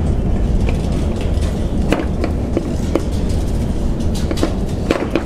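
Scattered short knocks and scrapes as the Ford Focus Mk3's lower radiator support is worked loose by hand from the bottom of the radiator, over a steady low rumble.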